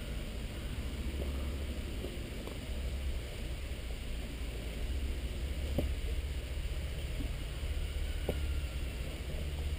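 Wind buffeting an outdoor camera microphone: a steady low rumble that swells and eases, with a couple of faint knocks about six and eight seconds in.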